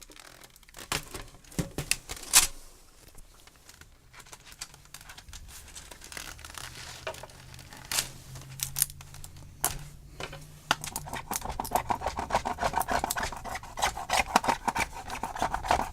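Screwdriver and plastic keyboard housing being worked by hand during a teardown: scattered sharp clicks and scrapes, becoming a dense run of quick clicking and rubbing in the last five seconds or so.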